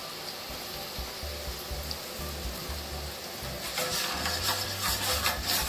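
Gram-flour batter dripping through a perforated ladle into hot oil and frying into boondi: a sizzle that swells into loud, dense crackling about four seconds in.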